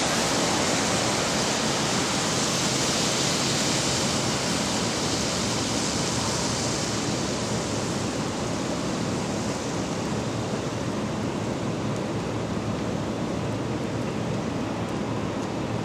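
Steady hiss of traffic on a rain-soaked street: tyres swishing over wet pavement, mixed with falling rain. It is brightest for the first six seconds or so, then eases slightly.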